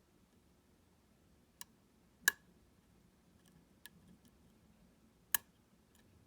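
Sharp metallic clicks of a lock pick and pin tumblers inside a U-Shin Showa NX high-pin-count lock as it is picked again after an overset pin. They come singly, a second or so apart, and the loudest are about two and five seconds in.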